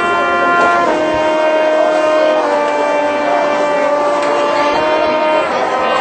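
Marching band brass playing slow, sustained chords that move to new notes every second or two.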